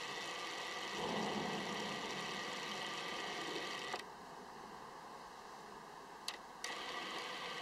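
Autofocus motor of a Tamron 90mm F2.8 Di macro lens whirring for about three seconds, starting about a second in, as it hunts for focus. Two short clicks follow near the end, over a steady hiss.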